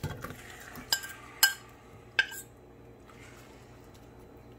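Marinated chicken pieces slid from a plate into a stainless steel pot with a soft thud, followed by three sharp clinks against the metal pot, about one, one and a half, and two seconds in.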